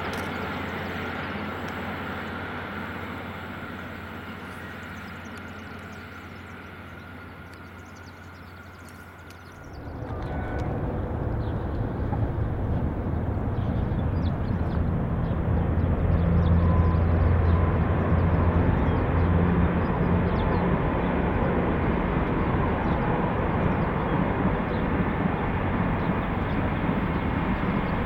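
A diesel locomotive's engine running steadily with a thin whine above it, slowly fading. About ten seconds in it gives way abruptly to a V/Line VLocity diesel railcar set running past with a loud, deep engine drone, loudest near the middle and staying loud to the end.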